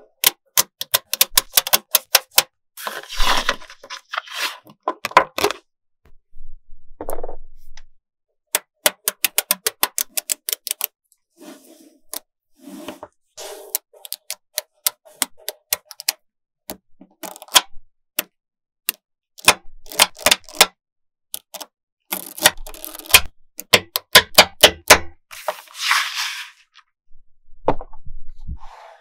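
Small magnetic balls clicking sharply as they snap onto one another, often in quick runs of many clicks, with a few longer bursts of clatter as blocks of balls are pressed onto a larger panel.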